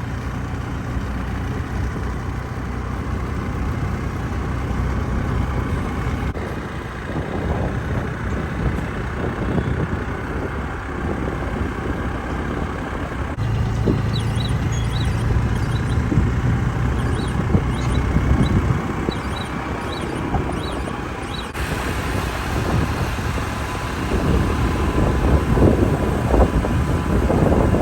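Motor scooter running on the road, its engine a steady low hum under road and wind noise. The sound changes abruptly three times.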